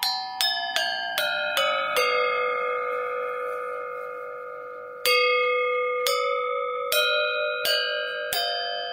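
Tuned bells playing a ringtone melody. A quick run of about seven notes steps down in pitch, the last one rings on for about three seconds, and then single notes are struck about a second apart, each left ringing.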